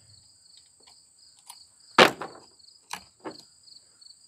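Sharp clicks and knocks of the chainsaw being handled as its bar, chain and cover are refitted: one loud knock about two seconds in, then two lighter ones. Crickets chirr steadily in the background.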